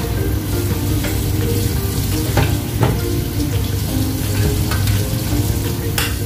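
Garlic and onion frying in olive oil in a pan, a steady sizzle, with a few sharp clicks partway through and near the end.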